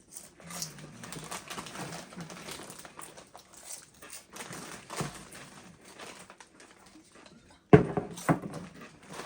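People chewing crunchy Doritos tortilla chips, with crinkling of the chip bag. A sudden loud rustle or knock comes near the end, with a second one just after.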